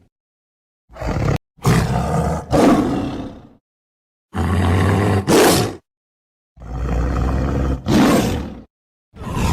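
Tiger roaring: four separate roars of one to two seconds each, every one rising to a peak near its end, with dead silence between them and a fifth roar beginning near the end.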